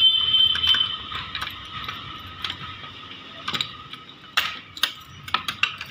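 Key turning in a steel padlock on a door: a run of small metal clicks and rattles as the lock is worked open, sharper and closer together near the end. A steady high whine fades away in the first second.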